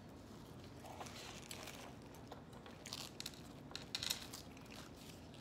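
Faint crinkling and tearing of a paper burger wrapper being peeled back from a cheeseburger, with a cluster of sharper rustles about three to four seconds in.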